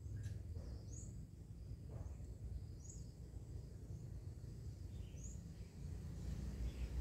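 Garden ambience: a low steady rumble with a bird's short high chirps, three of them a second or two apart, and a few fainter calls.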